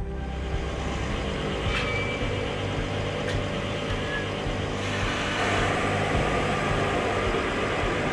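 The Frances Barkley's deck crane hoisting a tub of cargo off the ship, its machinery running steadily over the low hum of the ship's engine; the machine noise grows louder about five seconds in as the load is lifted.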